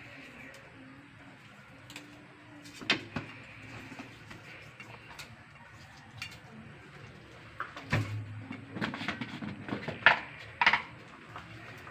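Knocks and clatters of whole tilapia being handled and rubbed with salt in a stainless-steel bowl in a steel sink: a few scattered knocks, then a run of clatters near the end, the loudest about ten seconds in.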